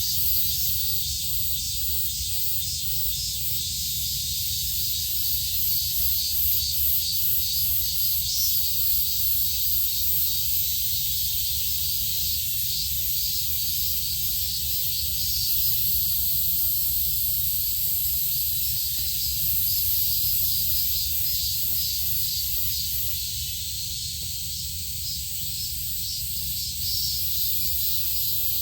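A dense, high-pitched chorus of insects, shrill and pulsing, over a steady low rumble.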